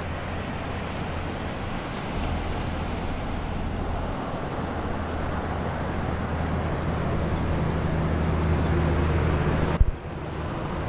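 Surf breaking and washing up the beach, with wind rumbling on the microphone. A sharp click comes near the end.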